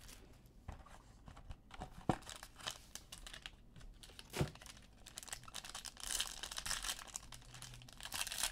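A trading-card box handled on a tabletop, with a few sharp knocks. Near the end comes a stretch of crinkling from the box's sealed foil card pack being handled.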